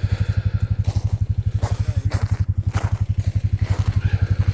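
Vehicle engine running steadily with an even, low pulsing beat of about twelve pulses a second, with a few faint crackles over it.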